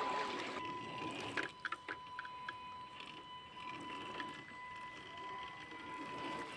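Stream water rushing, then a small electric RC crawler truck wading through shallow water with light splashes and drips, over a steady high whine.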